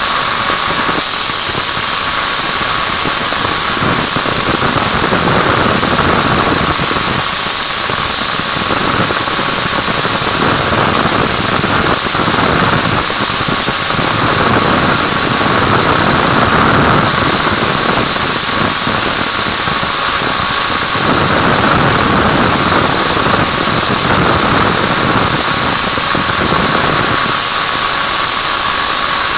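Handheld angle grinder running at speed with a steady high-pitched whine, its disc grinding against a metal ring held to it. The grinding noise swells and eases as the ring is pressed on and turned.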